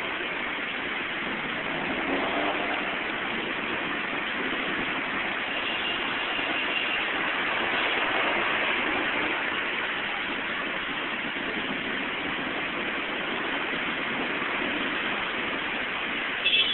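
Heavy rain pouring steadily, mixed with cars and motorbikes driving past on the wet road. A brief sharp knock near the end.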